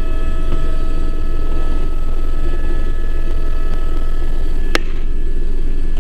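Helicopter turbine and rotor noise heard from inside the cabin: a loud, steady rumble with steady whining tones over it. A single sharp click sounds about five seconds in.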